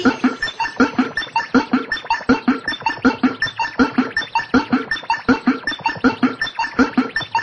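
Electronic music: a fast, even run of short synth bleeps, about five a second.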